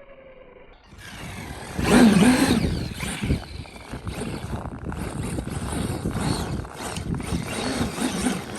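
Electric Traxxas X-Maxx RC truck driving through snow. Its brushless motor whine rises and falls with the throttle over a steady rush of tyres churning snow. The sound starts about a second in after a quieter moment and is loudest at about two seconds.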